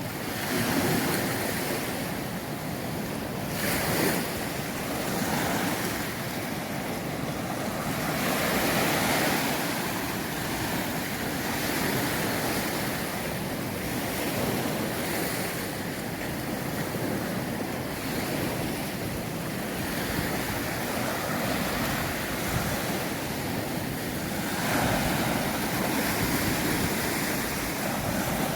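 Sea surf breaking and washing up a sandy beach, swelling and easing as each wave comes in, with wind buffeting the microphone.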